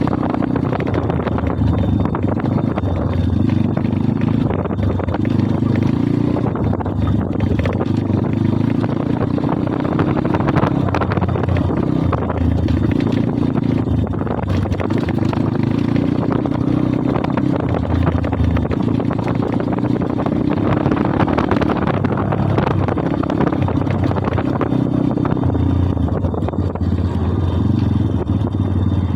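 Kayo pit bike's small single-cylinder four-stroke engine running under way, its pitch rising and falling over and over as the throttle is opened and eased between shifts.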